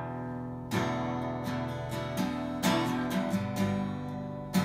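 Acoustic guitar strummed, a run of chords each left to ring, with a new strum every half second to a second.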